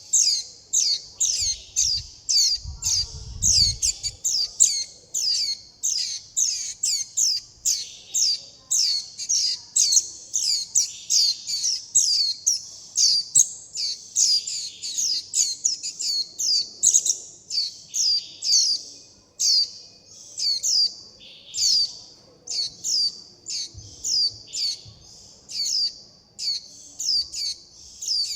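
Juvenile white-eye's begging and contact calls: a rapid, continuous series of short, high, downward-slurred chirps, two or three a second.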